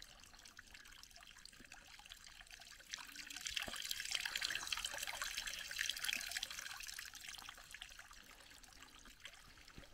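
Storm runoff trickling out of a culvert into a muddy pond, a faint steady splashing that swells for a few seconds in the middle.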